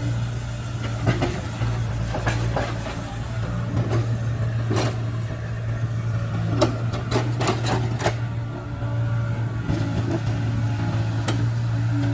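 Caterpillar 307C excavator's diesel engine running steadily, with a string of sharp knocks and clacks between about one and eight seconds in as the machine works rock.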